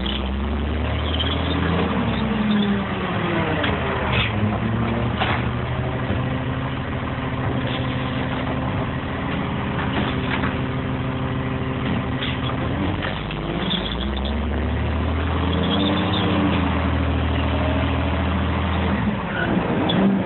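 Garbage truck engine heard from the cab, its pitch climbing and falling as the truck speeds up and slows between stops, with scattered rattles and knocks from the truck body.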